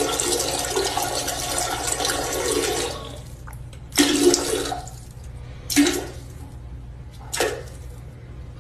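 Toilet flushing: a loud rush of water that dies away about three seconds in, followed by a few short bursts of water sound.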